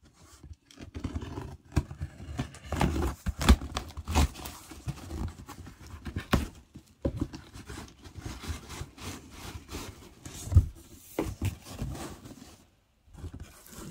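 A dull knife sawing and scraping through packing tape and cardboard as a shipping box is cut open, with the cardboard flaps rustling and giving sharp knocks as they are pulled and handled.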